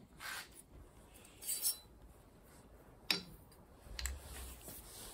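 A few light clicks and clinks of a knife blade and small parts being handled and set down on a steel workbench, with a short rustle; the sharpest click comes about three seconds in.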